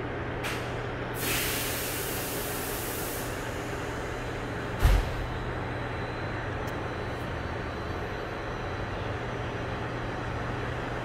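Cabin sound of a Korail Suin Line electric commuter train car: a steady low hum with a hiss of air about a second in that lasts roughly two seconds. A single heavy thump comes near the middle.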